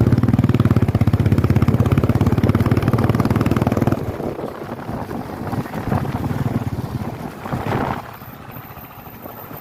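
Motorcycle engine running hard under load, then easing off about four seconds in and dropping lower again near the end.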